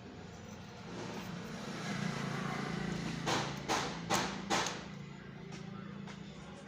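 Small metal nuts being fitted by hand onto heatsink bolts on an amplifier board: light metallic clicks and taps, four sharp ones in quick succession about halfway through, over a steady low hum.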